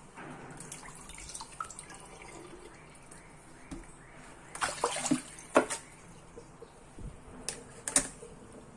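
Wet raw chicken thighs being handled in a plastic colander in a kitchen sink: water dripping and splashing, with a cluster of sharp clacks and knocks around the middle and a few more near the end.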